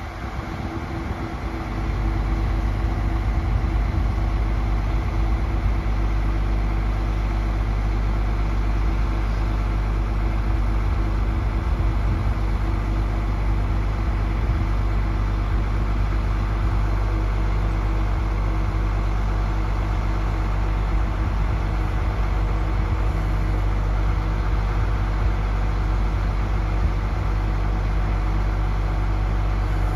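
Diesel engine of a Terex RT 175 rough terrain crane idling steadily, a low even drone that comes up in level about a second and a half in.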